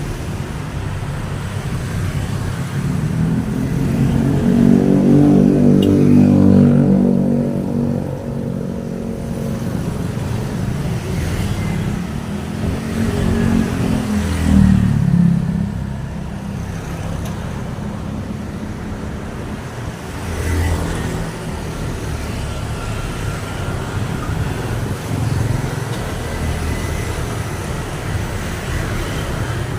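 Road traffic: motor vehicles passing one after another over a steady road noise. The loudest goes by about five seconds in, its engine note dropping as it passes, and another passes about fourteen seconds in.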